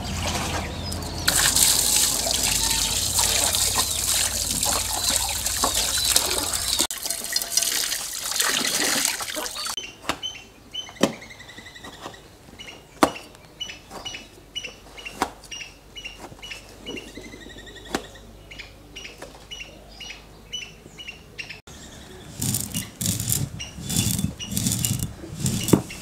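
Water pouring and splashing as a scored parrotfish is rinsed by hand over a metal bowl. About ten seconds in it gives way to sharp, evenly spaced taps of a cleaver slicing tomatoes against a steel plate. Near the end, a stone roller crushes and grinds peppercorns on a grinding stone in rhythmic strokes.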